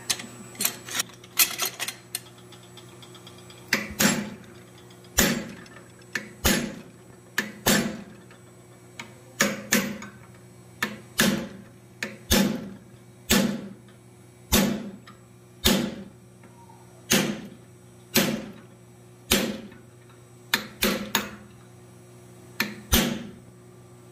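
Hammer blows on hot steel at the anvil horn, fullering a sea turtle's flippers: sharp metallic strikes about one a second, some in quick pairs, over a steady low hum.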